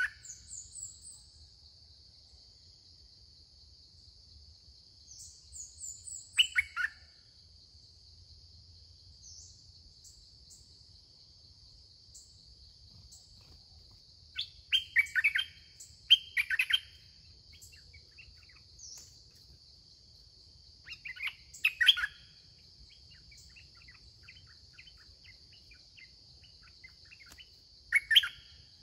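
Red-whiskered bulbuls singing short song phrases in bouts a few seconds apart, with thin high chirps in between. A steady high insect drone runs underneath.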